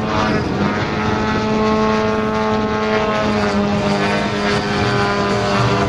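Large-scale RC model aerobatic plane's DA-170 two-stroke petrol engine and propeller running loudly at a fairly steady pitch, with slight rises and falls in tone.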